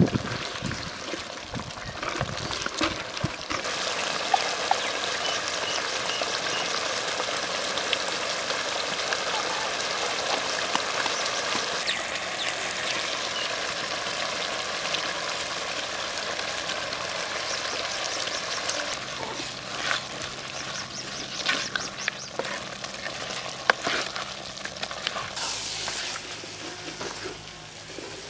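Rabbit meat sizzling steadily in a clay pot over a wood fire, with a wooden spatula stirring and scraping against the pot now and then.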